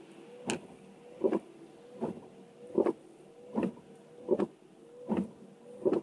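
Car windscreen wipers sweeping back and forth in rain, with a dull thud at each end of the stroke, a little more than once a second. A faint motor hum rises slightly between the strokes.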